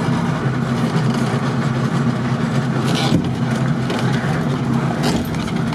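Engine and drivetrain of a Zaporozhets-based 4x4 off-road build heard from inside its cabin, running steadily in four-wheel drive over a rough dirt track. There are two short knocks, about three and five seconds in.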